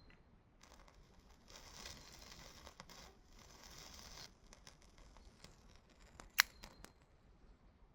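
A dry scraping, rasping sound for about three seconds, followed by a few light clicks and one sharp click about six seconds in.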